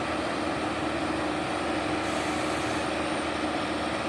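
Heavy diesel engine running steadily, with a brief hiss about two seconds in.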